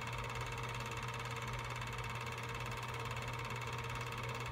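Steady hum and hiss of a film projector running while the silent home-movie footage plays.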